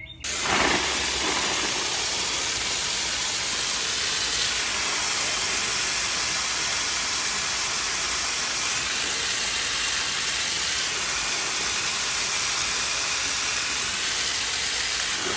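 Water spraying steadily from a garden hose, starting suddenly, to water in newly transplanted pineapple guava plants.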